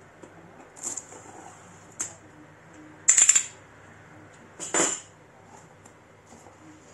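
Hard items being handled and set down during an unboxing: four short knocks and clatters. The loudest, about three seconds in, is a half-second rattling clatter.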